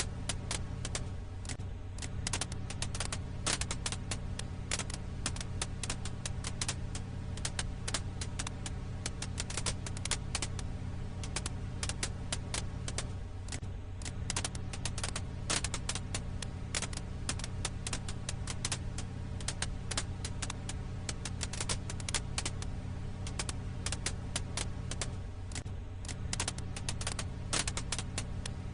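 Firewood crackling: dense, irregular pops and snaps over a steady low hum.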